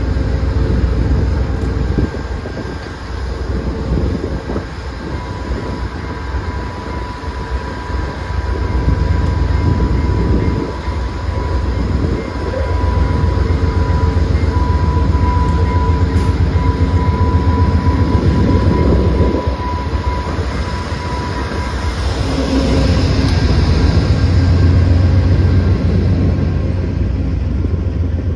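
VIA Rail GE P42DC diesel locomotive running slowly alongside a station platform at the head of a passenger train: a steady deep engine rumble that swells as it comes alongside, then the stainless-steel passenger cars rolling past.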